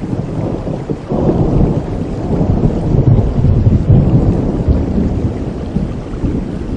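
Thunder rumbling over steady rain. The deep rumble builds about a second in, is strongest midway, and eases off toward the end.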